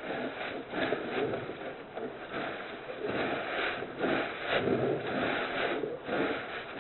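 Polar bear cub snoring loudly, a run of noisy breaths coming about once or twice a second.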